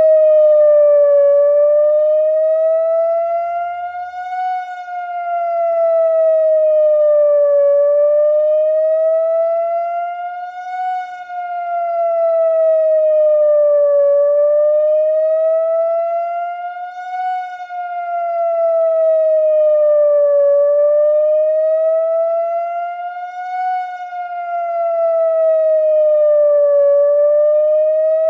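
ATI HPSS-16 electronic outdoor warning siren sounding its wail signal. The pitch glides slowly up and down over a narrow range, about once every six seconds, with the loudness swelling and fading in each cycle.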